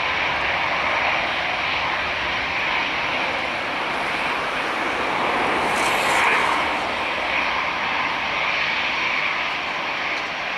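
Jet engines of an Airbus A340-300, its four CFM56 turbofans, running with a steady rushing noise that swells briefly about six seconds in.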